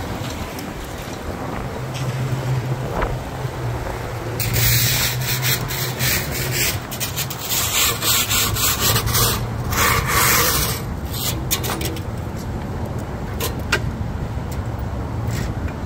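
A steady low engine hum, with a loud stretch of hissing, scraping noise in the middle that starts and stops in short bursts.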